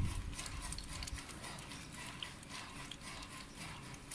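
Two white domestic geese feeding from a steel bowl: quick, irregular clicks and pecks of their bills against the food and the metal bowl.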